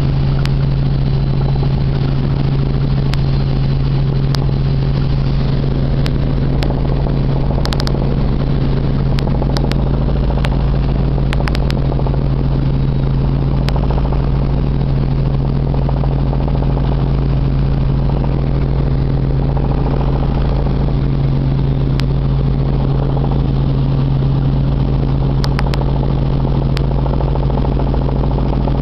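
Helicopter in flight heard from inside the cabin: the engine and rotors drone loudly and steadily, with a strong low hum that stays unchanged throughout.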